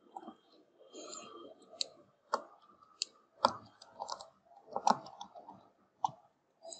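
A stylus writing on a pen tablet: light scratching, then a string of sharp, irregular taps and clicks as the letters are written.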